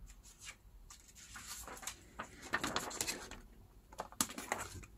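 Faint handling sounds: a silicone baking tray being picked up and slid over a cutting mat, with scattered light rustles and a few sharp clicks.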